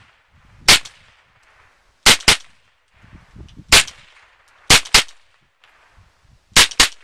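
A semi-automatic .22 AR-style rifle fitted with a titanium muzzle brake fires about eight sharp shots at an uneven pace. Three of them come as quick doubles, about a fifth of a second apart.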